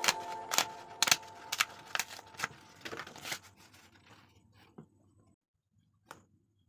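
Background music with a steady beat of about two clicks a second, fading out over the first few seconds, then near silence.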